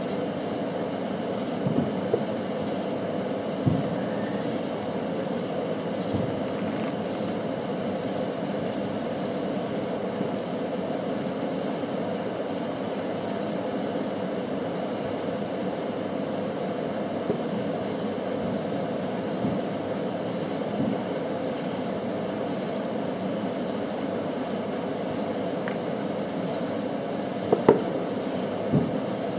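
Distant fireworks going off: scattered short pops and bangs over a steady low background rumble, with the loudest two bangs in quick succession near the end.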